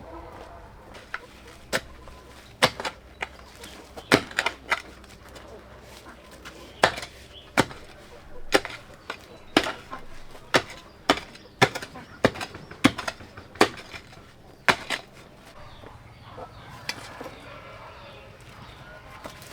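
A series of sharp chopping strikes, irregular but roughly one a second, that stop about three-quarters of the way through.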